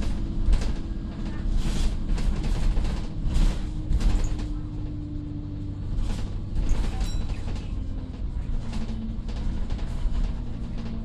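Alexander Dennis Enviro 200 bus heard from inside the saloon while under way: the diesel engine drones steadily, its pitch shifting as the bus changes speed, while seats and panels rattle and knock over the road.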